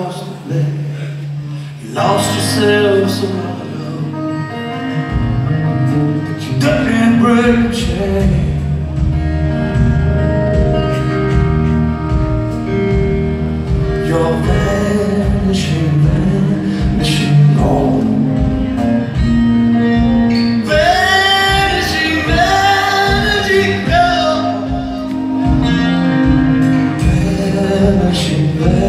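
Live rock band playing with a male lead vocal, heard in a large hall. The band gets fuller and heavier about five seconds in.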